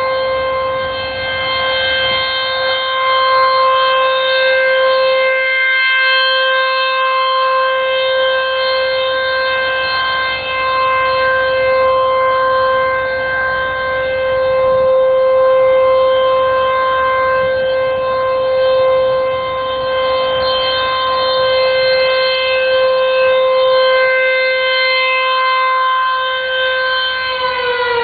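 Outdoor civil defense warning siren sounding a long steady tone during a test, swelling and fading slightly in loudness. Near the end its pitch starts to fall as it winds down.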